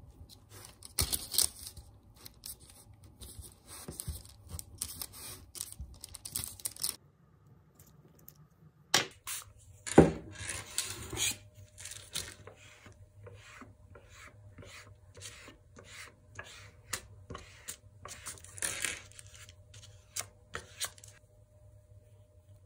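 Air-dry clay being worked by hand on baking paper: scraping and paper rustling as the clay is pressed into a steel ring cutter. After a short pause, a steel scraper smooths the clay disc in quick repeated strokes, about two a second.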